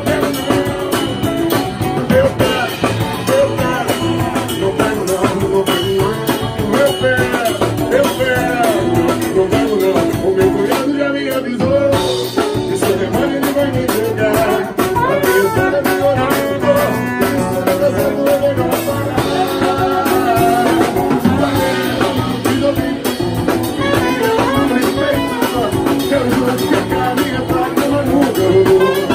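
Small samba-rock band playing live: a man singing into a microphone over a strummed small nylon-string guitar, with saxophone and light percussion.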